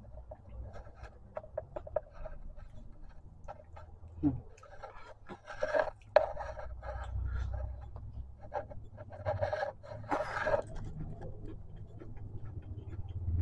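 A person chewing food close to the microphone: irregular small mouth clicks and crunches, with two longer breaths about five and ten seconds in.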